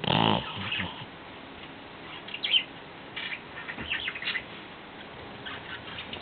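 Shih Tzu snoring in its sleep: a loud, pitched snore right at the start, then a run of short, high, squeaky snore sounds every second or so.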